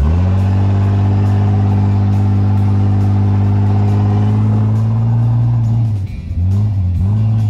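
Off-road SUV's engine held at high, steady revs under load while driving up a sand dune. About six seconds in, the revs drop, then rise and fall a few times as the throttle is eased off and on.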